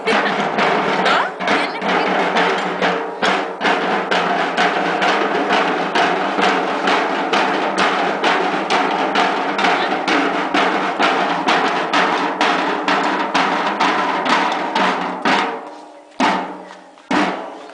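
A marching drum line beating a steady march rhythm, about four strokes a second; it thins out near the end to a few single hits.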